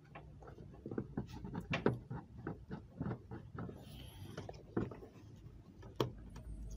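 Irregular light clicks and knocks of hands handling the plastic air-filter housing, intake hose and an electrical connector in a Volkswagen Amarok's engine bay, over a low steady hum.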